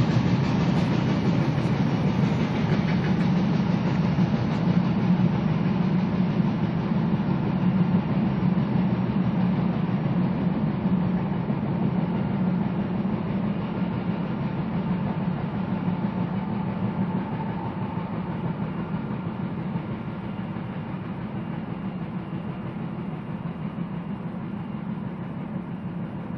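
Freight train cars rolling by on the rails, a steady rumble of wheels on track that slowly gets quieter as the train moves off.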